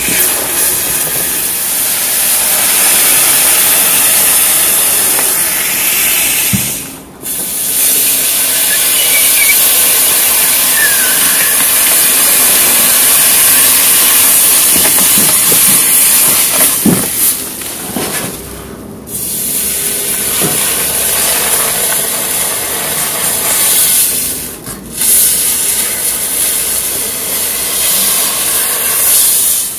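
Red-hot steel knife sizzling and hissing as it melts into cheese-topped bread and then a frozen tube of ice cream, steam boiling off the food; the hiss drops out briefly three times.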